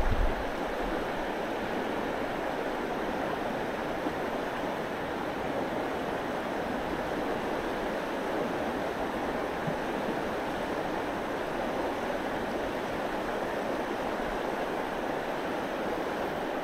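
Steady rush of flowing creek water, an even hiss with no breaks.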